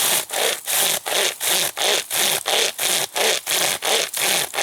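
Pocket chainsaw, a bare chainsaw chain pulled back and forth by its two hand loops, cutting through wood in quick, even strokes, about three a second.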